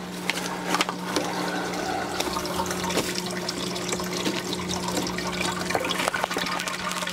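Water splashing and trickling as it circulates through a recirculating deep water culture hydroponic system, over a steady low hum from a running pump.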